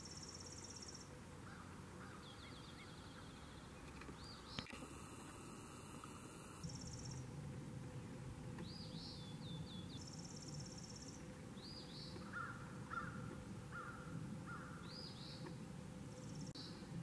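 Songbirds singing outdoors: high trills and short rising-and-falling chirps. About twelve seconds in comes a series of four or five lower calls.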